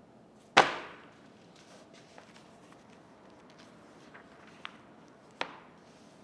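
A loud, sharp knock about half a second in, a few faint clicks after it, and a second, lighter sharp knock near the end: hard objects being handled and set down in a workshop.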